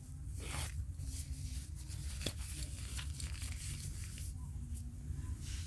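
Rustling and scraping from handling a catalytic hand warmer and its pouch, with a few small clicks, the sharpest about two seconds in, over a steady low hum.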